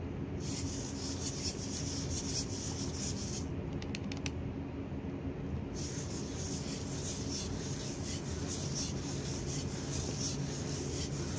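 Servo motors of a small 3D-printed quadruped robot dog whirring in fast pulsing bursts as its legs step. The whirring stops for about two seconds midway, with a few clicks, then starts again, over a steady low hum.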